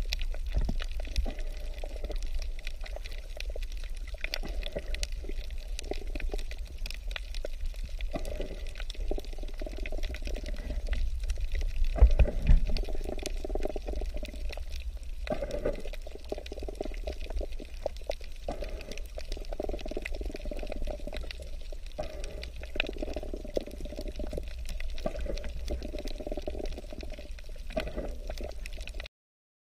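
Water sound picked up by a camera microphone underwater: a muffled swirling, bubbling wash over a low rumble, swelling and easing every couple of seconds, with a louder low surge about twelve seconds in.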